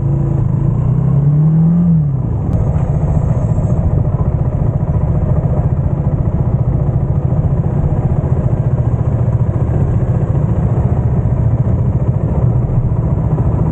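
Motorcycle engine accelerating, its pitch rising for about two seconds and then dropping, as at a gear change. It then runs steadily at speed under a loud, low rushing noise.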